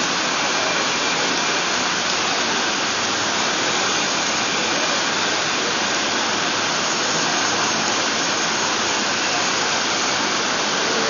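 Steady rain, an even hiss that never changes or breaks.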